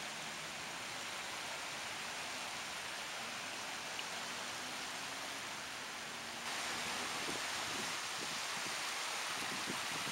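Steady hiss of moving water, even and without a clear rhythm, that gets a little louder and brighter about six and a half seconds in.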